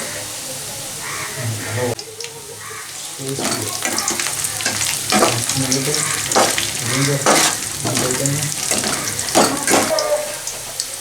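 Onions and chilli frying in hot oil, sizzling steadily while being stirred, with sharp clicks of a spatula against the pan that come thick and fast from about three seconds in.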